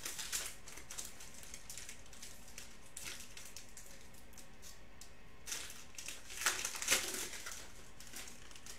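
Foil wrapper of a Panini Prizm football card pack crinkling in scattered bursts as it is handled and opened, loudest about six to seven seconds in.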